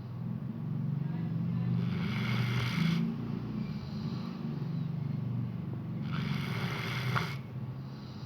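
Dog snoring: a low, steady buzzing snore with a louder breathy rush on the breath twice, about four seconds apart.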